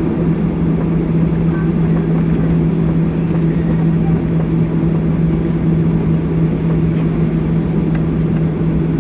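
Steady cabin drone of a jet airliner's engines and airframe as it taxis on a wet surface, heard from inside the cabin, with a steady low hum that sets in just after the start.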